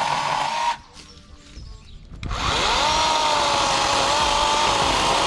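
Parkside 20 V cordless chainsaw running with a steady high whine. It stops about three-quarters of a second in as the trigger is released, then spins back up about two seconds in with a rising whine and holds at full speed.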